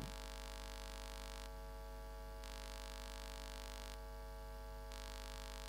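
Faint, steady electrical mains hum with a layer of hiss, and no other sound.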